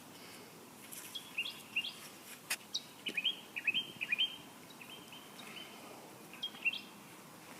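A small bird chirping in short, quick notes, in bursts of several chirps with pauses between. There is a single sharp click about two and a half seconds in.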